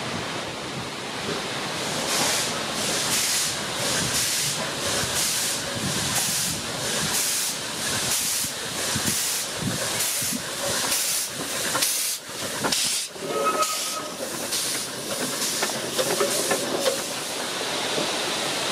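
NG.87, a Garratt steam locomotive, working past with steady exhaust chuffs about two a second over a hiss of steam from its open cylinder drain cocks. The beats grow less distinct in the last few seconds as it draws away.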